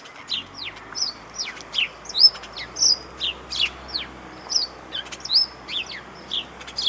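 Small birds chirping: a rapid, continuous series of short, sharply falling chirps, about three a second, from more than one bird.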